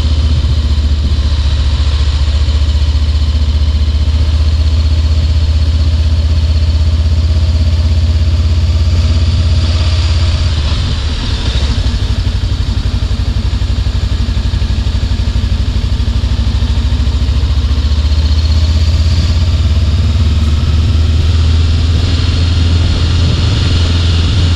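Voge DS525X's parallel-twin engine running steadily, with a brief drop in level about eleven seconds in.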